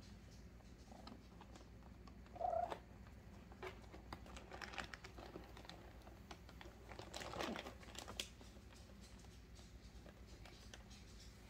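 A cat gives one short meow about two and a half seconds in. Cats shift about inside a cardboard box, with scratchy rustling and small clicks against the cardboard, heaviest around the middle.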